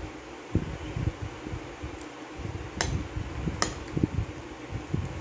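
Close-miked chewing and mouth sounds of a person eating soft banana and ice cream. Two sharp clinks of a metal fork against a ceramic plate come a little under a second apart, about three seconds in, over a steady background hum.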